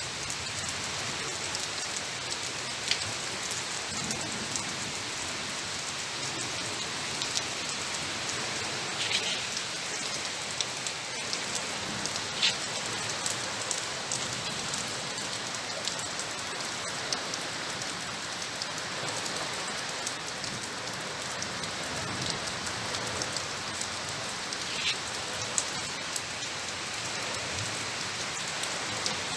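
Steady rain falling, with a scatter of close drops landing as sharp ticks, a few of them louder.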